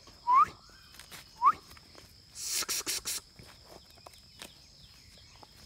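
Two dogs chewing and tugging at a dry palm frond: scattered crackles, and a louder burst of dry rustling and crackling about two and a half seconds in. Two short chirps, each rising in pitch, come near the start and about a second later. A steady high insect drone runs underneath.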